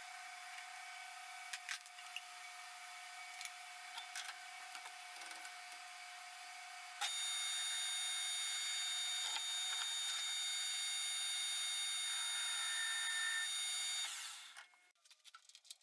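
Metal lathe running with a steady whine and a few faint clicks. About seven seconds in it steps up to a louder, high-pitched whine, which holds and then winds down and dies away near the end.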